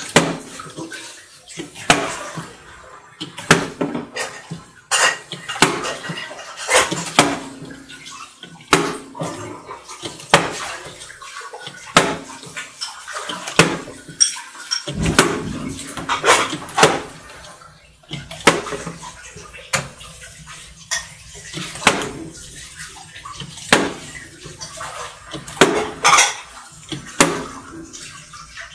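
A partly filled plastic water bottle is flipped again and again, landing on a glass tabletop with a thud and a slosh of water, roughly once a second.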